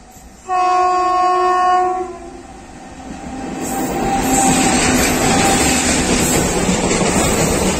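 WAG-7 electric locomotive sounds one horn blast of about a second and a half, starting about half a second in. From about three seconds in, the noise of the locomotive and its container freight wagons running over the rails builds and stays loud as the train passes close by.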